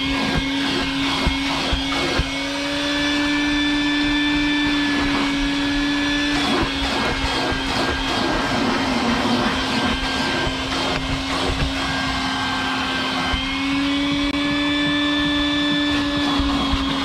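Vacuum cleaner running steadily as its hose nozzle is worked over a fabric car seat: a constant motor hum with rushing air, shifting slightly in pitch a few times.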